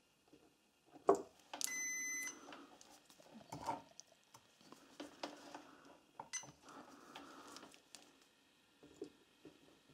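Handling noise from multimeter test leads being pressed into an ignition coil's connector: scattered clicks and rustles. About two seconds in, a Fluke digital multimeter gives one short electronic beep of under a second.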